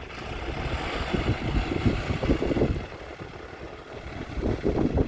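Bus engine running, with wind buffeting the microphone in an uneven low rumble; a hiss is stronger in the first three seconds, then eases.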